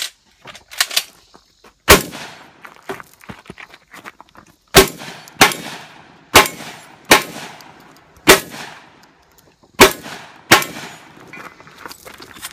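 Shotgun firing birdshot in a rapid string, about eight loud shots at uneven spacing, each with a short echoing tail, with lighter clicks and knocks in between.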